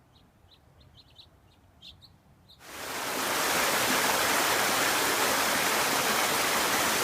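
A few faint, short bird chirps, then about two and a half seconds in a loud, steady rush of running water comes in and holds.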